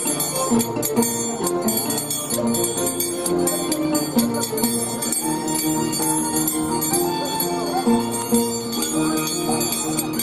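Scissors-dance music: a violin and harp play a melody with held notes, over the rapid, steady metallic clinking of the dancer's steel scissors blades.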